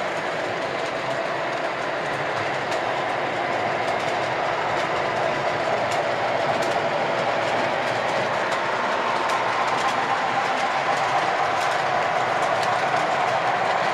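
O gauge model train running on its track: a steady rolling rumble of wheels and motor, with faint light clicks over the rail joints, growing slightly louder toward the end.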